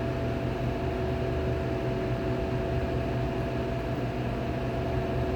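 R290 Copeland hermetic compressor in a condensing unit running with a steady hum and a few steady tones. It has been restarted after an off cycle and is pulling high amps (about 10 A against a normal 1.3–1.5 A), the condition that makes its overload relay shut it down.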